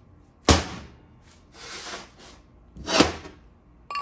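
Two dull knocks about two and a half seconds apart, with a softer scrape between them: heavy steel transmission parts, the output shaft and planetary gear set, being handled and set down on a workbench.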